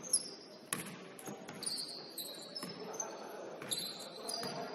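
Basketball play on a gym court: the ball bouncing in a string of sharp thuds, the loudest just after the start, with sneakers squeaking in short high squeals over them.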